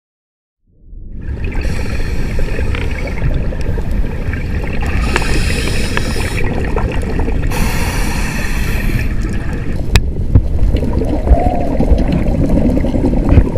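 Underwater sound through a camera's housing: a scuba diver's regulator bubbling in repeated bursts of exhaled air over a constant low rumble of water, starting about a second in.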